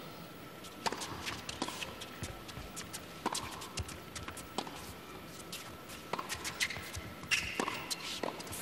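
Tennis rally on a hard court: a tennis ball struck by rackets and bouncing, heard as a string of sharp pops at uneven intervals, beginning with the serve.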